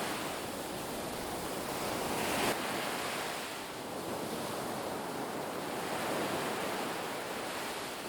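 Ocean waves breaking and washing on a beach, a steady rush that swells to a crest about two and a half seconds in and then ebbs.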